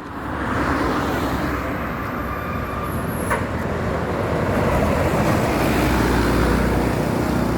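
Road traffic noise: vehicle engines rumbling low and tyres hissing as vehicles pass close by. It builds up over the first second, then holds steady, with a single sharp click about three seconds in.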